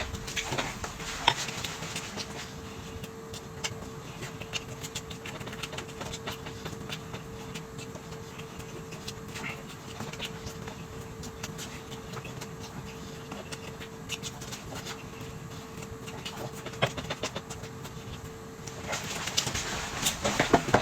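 Eating at a table: chewing with scattered clicks and taps of utensils and dishes, over a steady hum that stops near the end, when the clicking grows busier.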